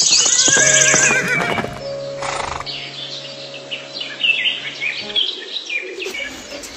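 A horse whinnying: a long, quavering neigh right at the start that fades away over about two seconds, followed by scattered quieter high chirps.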